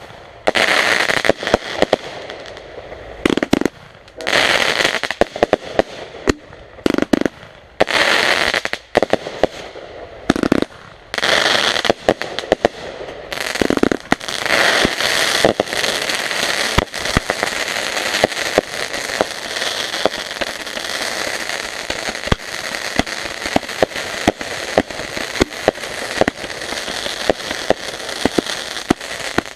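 Backyard consumer fireworks going off close by: sharp bangs with about five short hissing bursts, then from about halfway a dense, continuous crackle of small reports.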